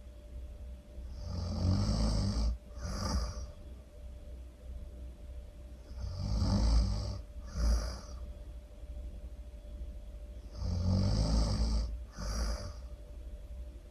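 A person snoring loudly and rhythmically: three long snores about every four and a half seconds, each followed by a short second breath sound.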